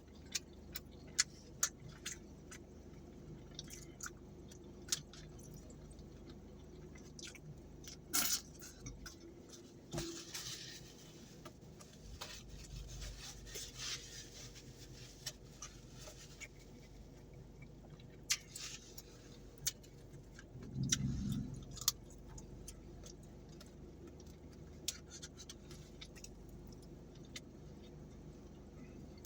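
Faint close-up eating sounds: chewing, with scattered sharp clicks and taps of utensil and food container, and a short 'mm' hum about 21 seconds in.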